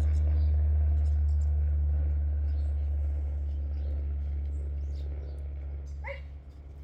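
Low engine rumble of a vehicle, slowly fading away, with a short, high chirp about six seconds in.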